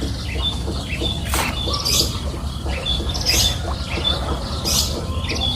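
Bird-like squawks and short chirps, repeating every second or so, over a steady low rumble.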